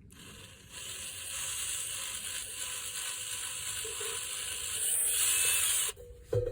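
A drill bit boring through the edge of a cracked Zildjian A Custom crash cymbal: a steady, high-pitched grinding that starts about a second in, gets louder near the end and cuts off suddenly. The hole is drilled just past the end of the crack to stop it spreading.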